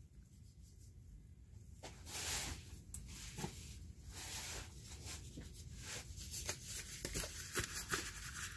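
Faint rustling and rubbing as gloved hands handle and tug a fibrous cloth rag out of a toilet macerator's blade cage, the rag that had jammed the blade. Quiet at first, then intermittent rustles with a few light clicks starting about two seconds in, growing busier toward the end.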